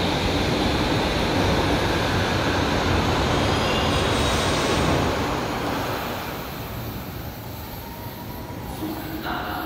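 Berlin U-Bahn train running past along the platform, with steady wheel and running noise that fades away from about five seconds in as the train leaves the station.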